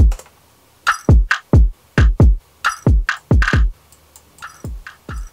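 Electronic drum loop without the rest of the beat, run through a compressor plugin on the drum bus. Deep kicks each drop quickly in pitch, with snare or clap hits between them in a steady pattern. The hits are softer about four seconds in.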